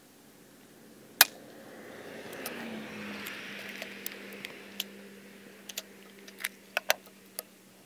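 FX Impact MKII .22 PCP air rifle firing one shot, a single sharp crack about a second in. Then a string of small metallic clicks as the side lever is cycled and the next slug is loaded by hand.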